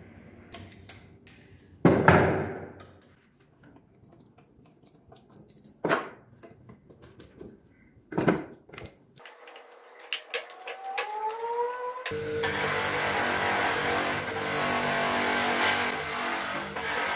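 Three sharp knocks of bar clamps and wood on a workbench, then a bench buffing machine's motor spinning up with a rising whine and running steadily with a cricket bat handle held against its cloth wheel.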